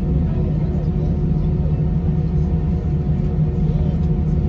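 Airbus A320-200 cabin noise while taxiing: a steady low rumble of the engines at taxi power, with a few constant hums over it.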